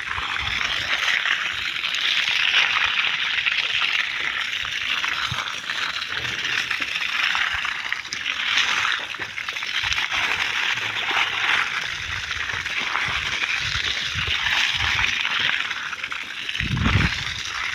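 Water gushing from a hose and splashing steadily onto a freshly cast concrete roof slab, wetting it for curing. A dull low thump comes near the end.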